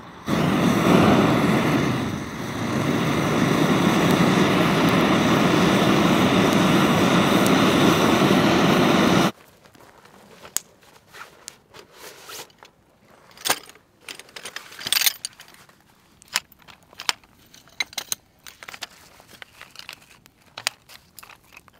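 Handheld gas torch running with a steady, loud hiss as it is held to a stack of kindling, cutting off suddenly about nine seconds in. After that, a small wood campfire crackles with scattered snaps, along with footsteps crunching on gravel.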